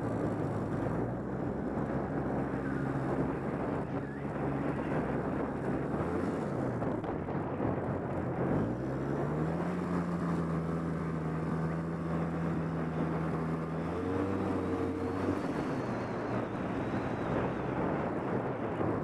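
ATV engine running while riding, its note dipping and climbing a few times with the throttle and holding steady through the middle.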